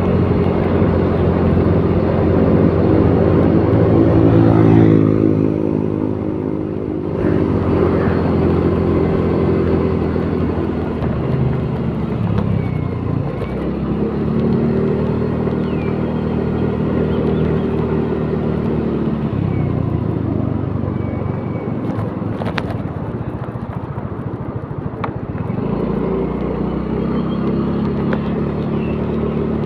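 Car engine and road noise heard from inside the cabin while driving. The engine note swells and drops away several times as the car speeds up and eases off.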